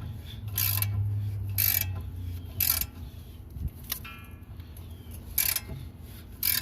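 Ratchet wrench clicking through repeated strokes, about one a second with a pause midway, as it tightens the screw of a hub puller that is drawing the rear wheel hub off the axle. A short ringing metallic click comes about four seconds in.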